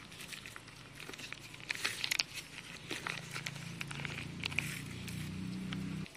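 Dry leaf wrapper crinkling and crackling as it is unfolded, then a dog's quick chewing and licking of soft rice off the leaf. A low hum builds underneath in the second half and cuts off suddenly just before the end.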